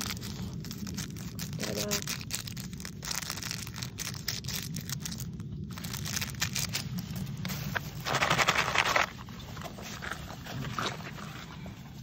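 Paper medicine packet crinkling and rustling as it is handled and shaken to tip powder out, with a louder stretch of crackling lasting about a second roughly eight seconds in.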